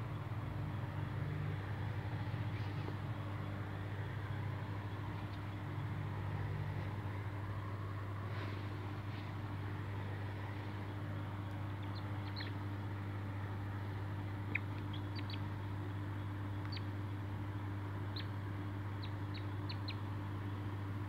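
Steady low hum. From a little past halfway through it there is a scattered run of short, high chirps or squeaks.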